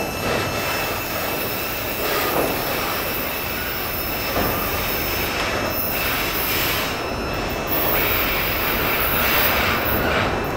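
Freight train cars rolling past: a steady noise of steel wheels on the rails that swells and eases slightly.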